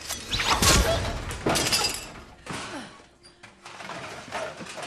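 Fight-scene sound effects: a loud crash with breaking and clattering about half a second in and a second crash about a second later, then fainter knocks and scuffling.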